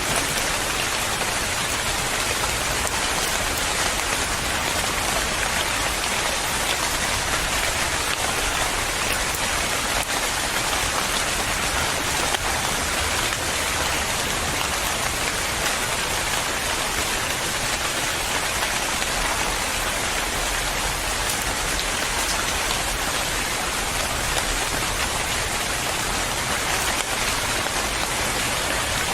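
Steady, dense rain falling and pattering on surfaces, with no let-up and no thunder.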